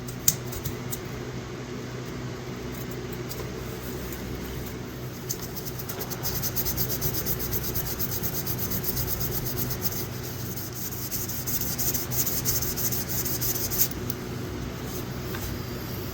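Knife blade being hand-sanded with fine-grit sandpaper: quick back-and-forth scratchy strokes that start about five seconds in and stop near the end, over a steady low hum. There is a single sharp click right at the start.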